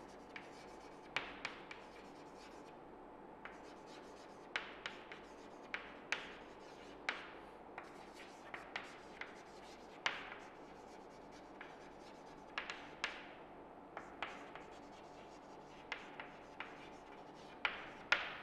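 Chalk writing on a chalkboard: faint, irregular taps and short scratches as the chalk forms letters.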